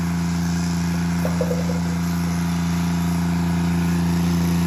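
A small engine running steadily at one constant speed, with an even hum.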